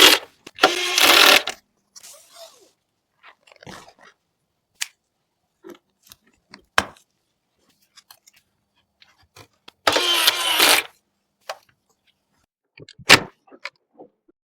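Hardware being handled during a PC build: scattered sharp clicks and taps of parts and packaging, with short noisy bursts about a second in and again about ten seconds in.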